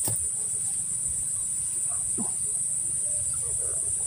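Steady, high-pitched insect drone, with a brief downward-sliding sound about two seconds in.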